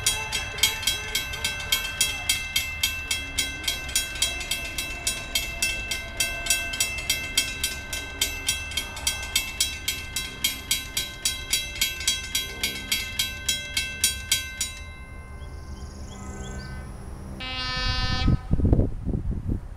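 Railroad crossing warning bell ringing rapidly and evenly, about three strikes a second, as the flashing crossing signals activate and the gates lower for an approaching CSX freight; the bell cuts off about fifteen seconds in. Near the end a train horn sounds briefly, with low rumble.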